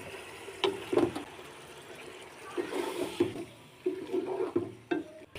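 Boiled macaroni tipped into a pan of chicken in sauce and stirred, making wet, irregular squelching and sloshing. A few sharp clicks of the spoon against the pan come about a second in and again near the end.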